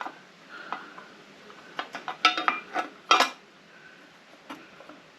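Metal parts clinking and clanking as a motorcycle horn cover is worked onto its mounting bracket: a string of irregular sharp knocks, some with a short metallic ring, the loudest about three seconds in.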